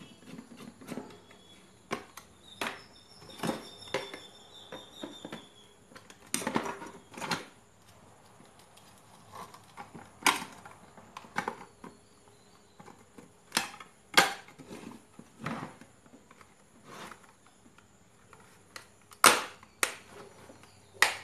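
Irregular sharp clicks and knocks of hard plastic as a dry electric iron is handled and its plastic handle cover is fitted back on, the loudest knock near the end.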